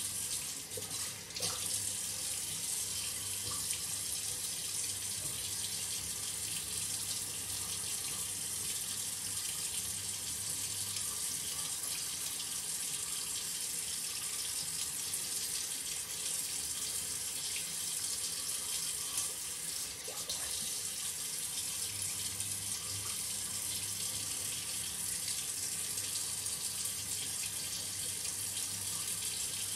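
Water running steadily in a tiled bathroom.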